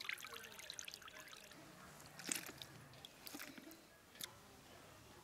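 Faint water dripping and trickling from handfuls of washed raw chicken lifted out of a bowl of water, with a few soft wet plops, the loudest a little over two seconds in, as pieces are dropped into a plastic colander.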